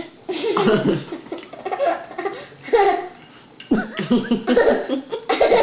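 Laughter, coming in several bursts with short pauses between them.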